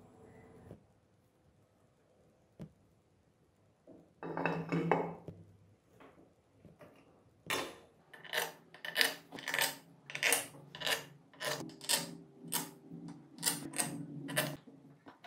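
Small steel bolts and washers clinking together in a hand, a run of light metallic clinks about twice a second, after a short metallic clatter about four seconds in.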